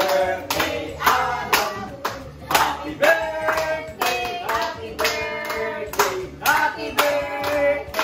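A song sung to steady hand-clapping in time, about two claps a second.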